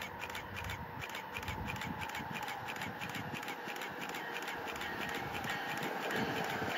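Approaching Amtrak train led by an ACS-64 electric locomotive: a low rumble that slowly grows louder, with a fast, even ticking of about four or five clicks a second running over it.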